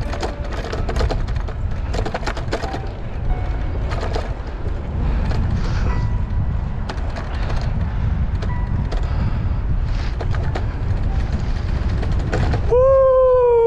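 Wind rumbling over a helmet-mounted action camera's microphone on a moving bicycle, with scattered clicks and rattles. About a second before the end, a loud drawn-out tone comes in and slowly falls in pitch.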